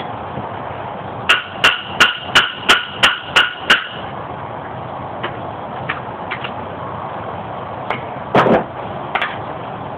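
A hammer striking a metal axle part: eight quick blows, about three a second, each with a short metallic ring. Near the end comes one heavier knock and a click.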